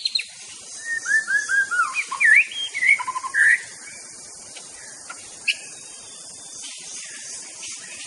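White-rumped shama singing one phrase of about three seconds: five quick slurred down-curving whistles, then a few varied, rising and falling notes. A single sharp note follows a couple of seconds later, over a steady high-pitched hiss.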